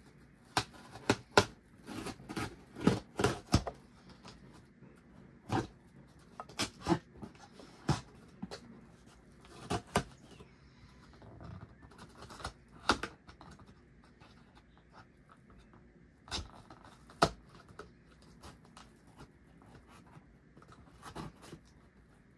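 Hands picking at and slitting the packing tape on a cardboard shipping box: irregular sharp taps, scrapes and crinkles of tape and cardboard, busiest and loudest in the first few seconds.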